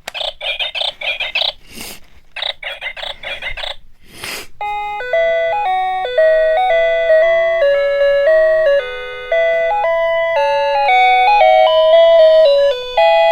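Electronic alarm clock sounding: a rapid pulsing alarm tone in two bursts, each ended by a short sharp noise, then from about four and a half seconds in an electronic chime melody playing note by note.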